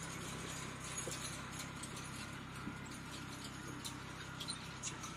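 Kubota B2261 compact tractor's diesel engine running steadily, with scattered light clicks and clinks over it.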